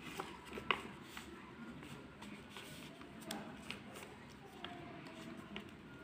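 A sheet of origami paper rustling and crinkling faintly as it is folded and creased by hand, with scattered soft clicks.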